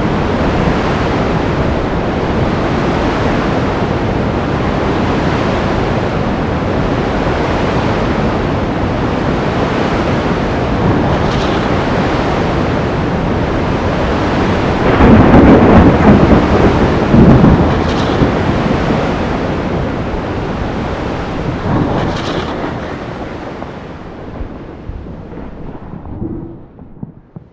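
Sea storm: a steady rush of rain, wind and surf, with a loud crack and roll of thunder about halfway through. The storm noise then dies away near the end.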